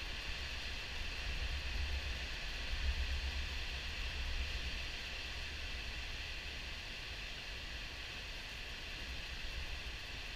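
Water pouring over a river diversion dam's spillway at high flow, a steady rushing hiss of falling water and whitewater with a low rumble underneath.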